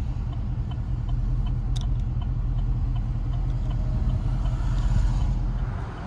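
Sixth-generation Chevrolet Camaro engine and exhaust running at a steady cruise, a low rumble with road noise, heard from inside the car. It eases off slightly near the end.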